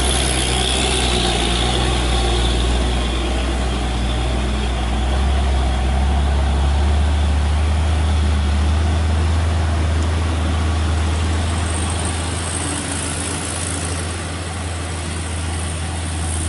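Heavy trucks' diesel engines running at low speed as they crawl round a tight bend: a steady low drone.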